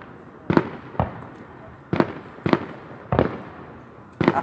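Aerial fireworks bursting in the night sky: a series of about six sharp bangs, a half second to a second apart, each trailing off briefly.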